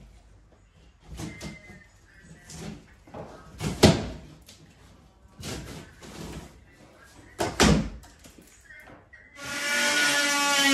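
Plasterboard and plaster being pulled off a wall and set down: scattered knocks and thumps, the loudest about four seconds in and near eight seconds. Near the end an oscillating multi-tool starts up with a steady buzz.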